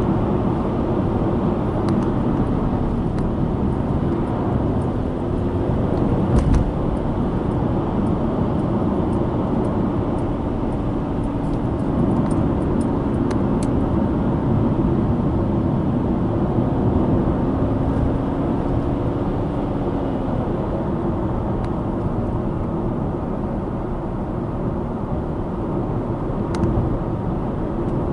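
Subaru Impreza Sport 1.6i-L driving downhill, its FB16 1.6-litre flat-four engine and tyres making a steady road rumble, with a single thump about six and a half seconds in.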